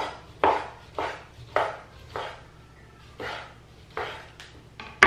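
Kitchen knife slicing raw chicken breast into thin strips on a wooden chopping board. Each cut ends in a sharp knock of the blade on the board, about nine in all, roughly every half second, with a short pause a little past halfway.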